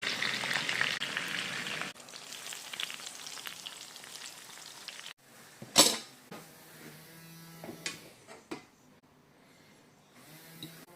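Food frying in a hot pan with a steady sizzle, loudest for the first two seconds and quieter until about five seconds in. A single sharp knock follows about six seconds in, then a few lighter clicks.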